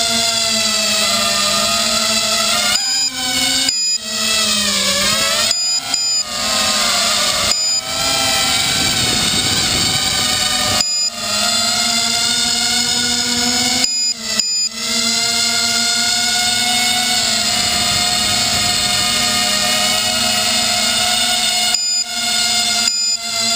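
Four 1806 2400Kv brushless motors and propellers of an FPV250 quadcopter, heard from its onboard camera: a loud buzzing whine in several tones that rises and falls with the throttle. It drops out briefly several times where the throttle is cut.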